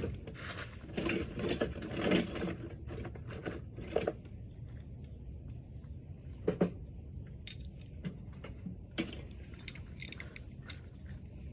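Metal hand tools, a ratchet and socket extensions, clinking and rattling as they are handled and fitted together. There is a busy run of clinks over the first four seconds, then a few single clicks later on.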